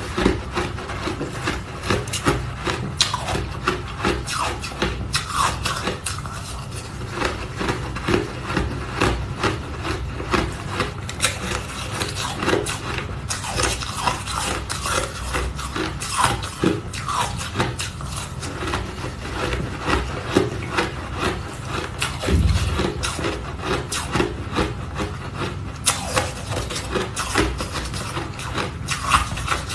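Ice being crunched and scraped: a dense, unbroken run of crisp crackles and rasping scrapes.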